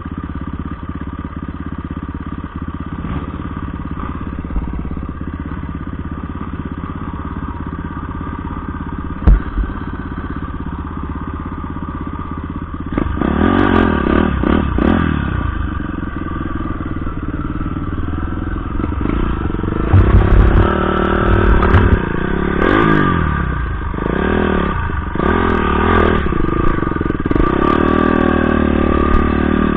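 Dirt bike engine running steadily at low speed on a rough trail, heard close up. From about halfway through it revs up and down repeatedly, louder. A single sharp knock comes about nine seconds in.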